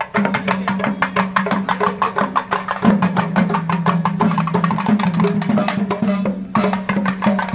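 Street procession band playing fast, dense drumming on shoulder-slung double-headed drums over a steady low held note. The note drops in pitch about three seconds in and goes back up near the end.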